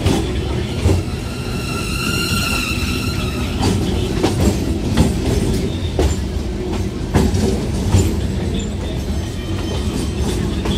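Trains running close side by side, including an electric multiple-unit local: steady rumble of steel wheels on rail with irregular sharp knocks over rail joints. A brief high-pitched tone sounds about two seconds in.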